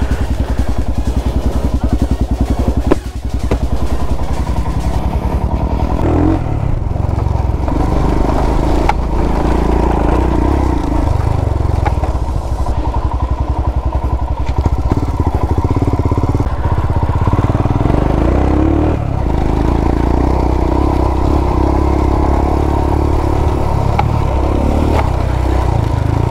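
Royal Enfield Himalayan's single-cylinder engine running as the motorcycle is ridden over rough dirt, its engine note rising and falling with the throttle. A sharp knock about three seconds in.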